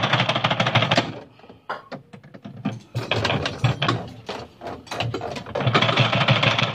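Rapid clicking and rattling in three bursts from a hand wrench being worked back and forth on the centre bolt of a top-loading washing machine's pulsator. The pulsator is stuck fast after years of use without ever being removed.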